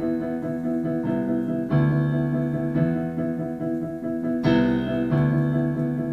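Keyboard accompaniment for a sung improv scene, playing sustained chords with a new chord struck every second or two.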